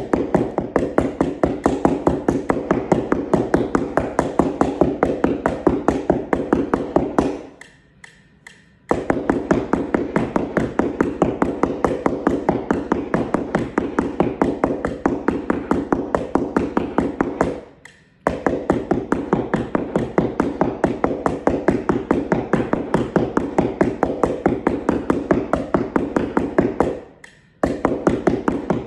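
Two yarn mallets tapping rapidly and evenly on a paper keyboard practice layout over cardboard, a dull unpitched tapping rather than ringing bars. The strokes come in long unbroken runs, with a pause about seven seconds in and brief breaks about eighteen seconds in and near the end.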